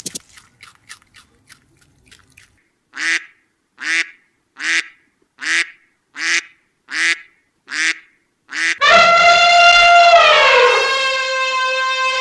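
A duck quacking eight times in an even series, roughly one quack every 0.7 s. Then, about nine seconds in, an elephant trumpeting: a loud, long held call that drops in pitch partway through.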